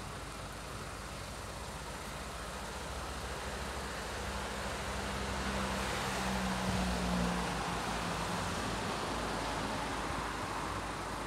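Road traffic: a motor vehicle passes, its engine hum and tyre noise swelling to a peak about seven seconds in, then easing off.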